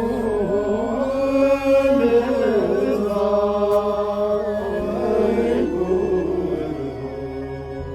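Background music of a chanted Buddhist mantra over a steady drone, fading near the end.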